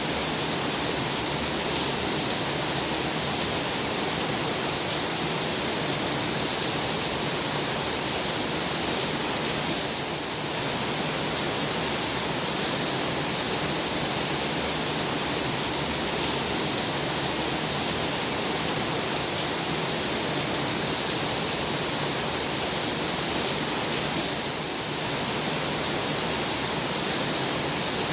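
Heavy rain pouring steadily, a dense even hiss with no other sounds. It dips slightly twice, about a third of the way in and again near the end.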